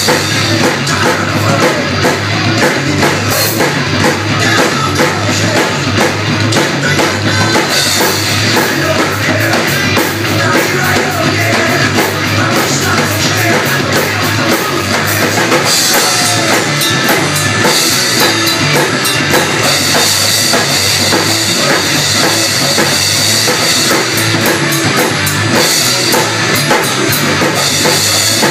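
Ludwig drum kit played in a driving rock beat, with bass drum, snare and crash cymbals hit continuously, loud and without a break. It plays along with a recorded rock song.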